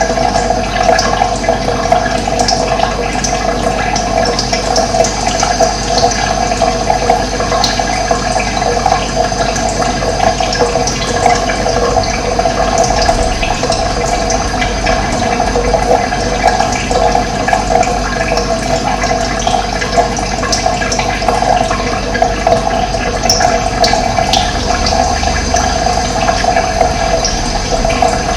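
Running water flowing steadily, a continuous rushing with its weight in the mid range, with a few faint high bird chirps over it.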